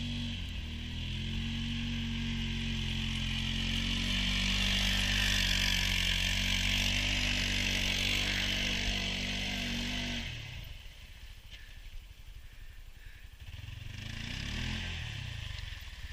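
2017 Arctic Cat Prowler HDX 700 side-by-side's single-cylinder engine running hard with a steady hiss over it; about ten seconds in it drops away sharply, then rises and falls in pitch again near the end as the machine comes round.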